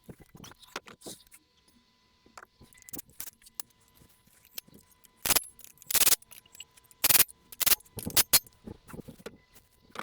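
Metallic clinking and clattering of tools and engine parts being handled, with scattered light clicks, then a run of louder rattling clanks from about five seconds in.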